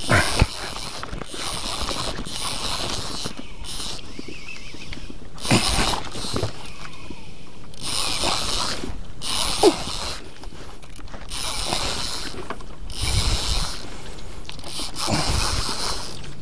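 Fishing reel being cranked while a hooked fish is fought up from the bottom, in spells broken by short pauses, with handling noise and a few sharp knocks.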